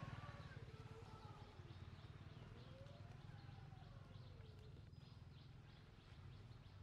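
Near silence: faint outdoor ambience, with a few distant bird calls gliding up and down over a low steady hum.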